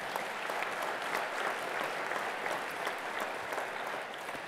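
Large audience applauding, many hands clapping together, easing off near the end.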